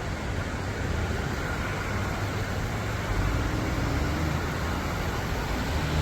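Steady rushing of muddy floodwater pouring down a street, with a low hum underneath that grows firmer about halfway through.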